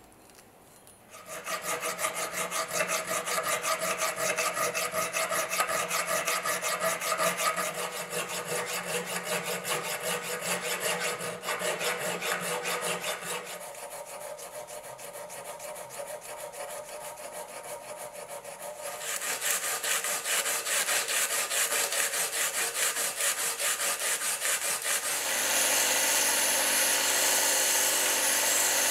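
Abrasive paper rubbed by hand over a steel hammer's claw in quick rasping strokes, softer for a few seconds midway. Near the end a belt sander starts running steadily with the hammer's steel face pressed against the belt.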